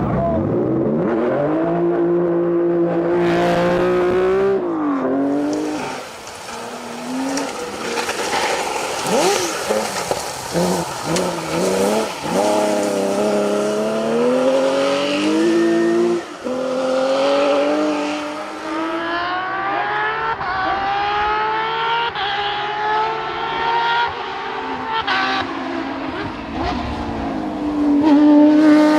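Porsche rally car engine at full throttle, rising and falling in pitch through gear changes and lifts for corners, with a long climbing run and the loudest pass near the end.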